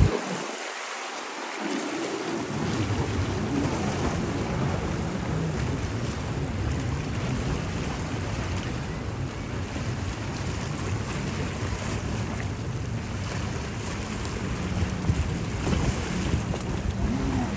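Jet ski engines running as the craft speed across choppy water, with water and waves and wind on the microphone. The sound grows a little louder near the end as one passes closer.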